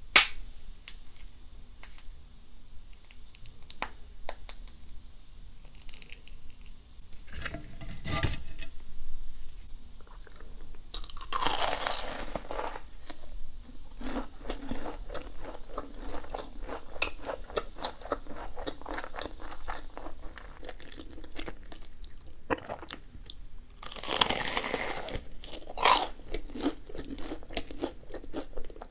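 Biting and chewing a corn dog's fried batter coating, close to the microphone. There are two loud bites, about eleven and twenty-four seconds in, each followed by a steady run of chewing, and a single sharp click right at the start.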